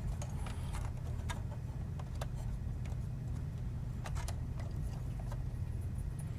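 Scattered light clicks of a cable being handled and rerouted in a server chassis, over a steady low hum.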